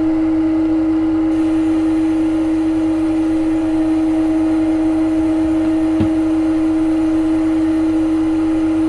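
Simulated CNC lathe spindle running in the lathe simulator software: a steady, constant machine hum built on one strong unchanging tone. A single short click about six seconds in.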